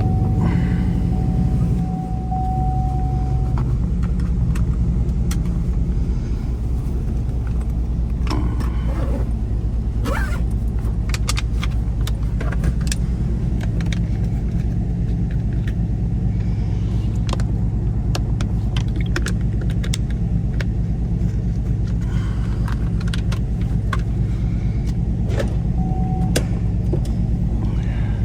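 2013 Chevrolet Camaro SS's 6.2-litre V8 running at low, steady revs while cruising, a low, even engine note, with scattered light clicks and rattles.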